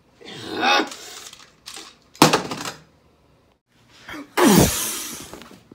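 Beyblade spinning tops clattering in a plastic stadium, with one sharp knock about two seconds in. Near the end comes a loud rush of noise with a falling tone.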